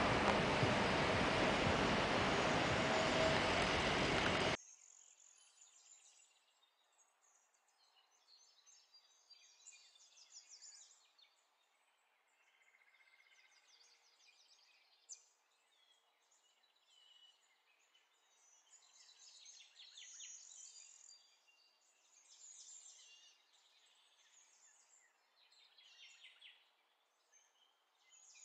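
Loud, steady outdoor street noise cuts off abruptly about four and a half seconds in. After that comes faint, high-pitched chirping that comes and goes in short patches.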